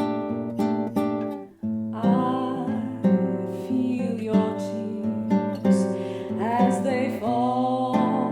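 Acoustic guitar playing a bossa nova, plucking sustained chords. From about two seconds in, a melody line sliding between notes comes in over it.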